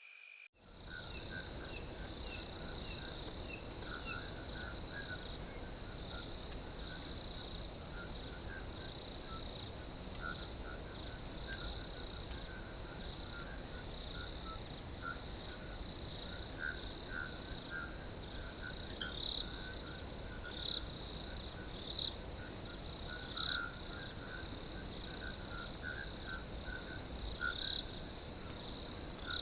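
Night chorus of crickets in a field: a steady, unbroken high trill, with scattered lower chirping calls from other animals, likely frogs, going on underneath throughout. It starts abruptly about half a second in, and one brief louder call stands out about halfway through.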